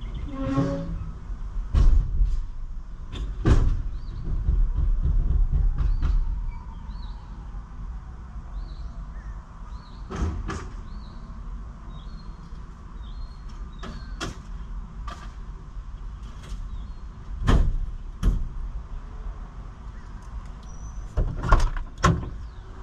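A series of separate sharp knocks and clunks over a low rumble.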